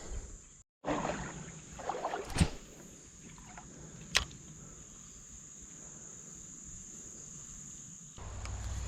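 A steady high insect drone, with scattered rustling and water-handling noises and two sharp clicks in the first few seconds, and a low rumble near the end.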